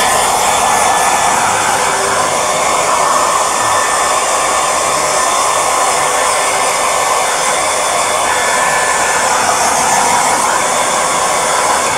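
Handheld hair dryer blowing steadily, a continuous airy rush with a faint motor hum, aimed at a wet dog's fur to dry it after a bath.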